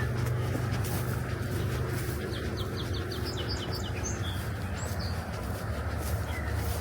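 A small bird sings a quick run of about eight short, high chirps a couple of seconds in, followed by a few single calls, over a steady low rumble.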